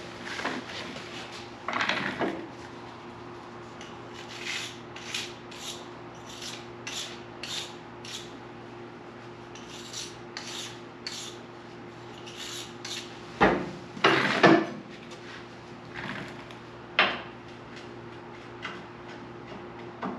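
Hand work on metal: a series of short scraping strokes, about two a second, with scattered clicks and a few loud knocks about two-thirds of the way through, over a steady low hum.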